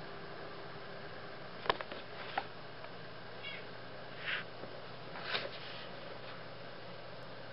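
A cat shifting and stretching on a quilted bedspread: two sharp clicks about two seconds in, then two short soft swishes of fur rubbing the quilt, over a steady background hiss.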